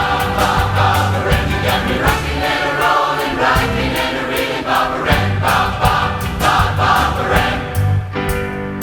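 A large massed choir singing in harmony a 1960s California pop medley over a band with a steady beat. The voices stop about eight seconds in, leaving the band playing alone.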